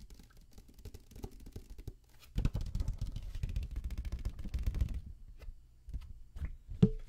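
Fingertips tapping and scratching on a blue folder held right up to the microphone. Faint scattered taps at first, a fast flurry of taps from about two and a half to five seconds in, and one loud knock just before the end.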